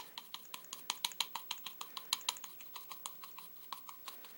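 A fine-tipped soldering iron tapping lightly and quickly into a SIG P226's grip while stippling it, making a rapid train of small sharp ticks, about six or seven a second.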